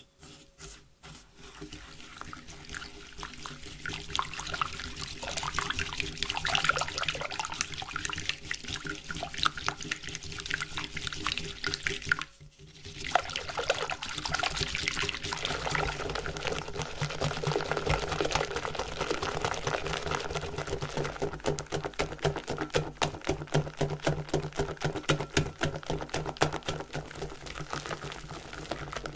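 Wire balloon whisk beating fresh cream and sugar by hand in a glass bowl: wet sloshing and tine scraping. There is a short pause about twelve seconds in, then quick, regular strokes as the cream thickens into whipped cream.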